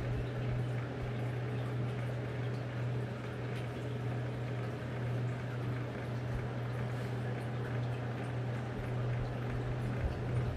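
Steady low hum with faint trickling water running continuously.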